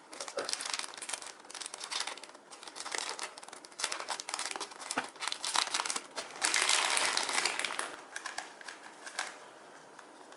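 Packaging crinkling and rustling as it is handled around a newly unboxed speedcube, loudest about two-thirds of the way through, then stopping about a second before the end.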